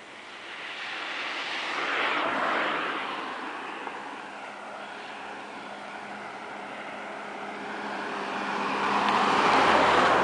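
Two vehicles passing by, one about two seconds in and a louder one near the end, each swelling and fading away.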